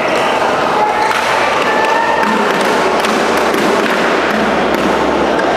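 A badminton rally: sharp racket strikes on the shuttlecock and thuds of players' feet on the court, over the steady din of a busy sports hall.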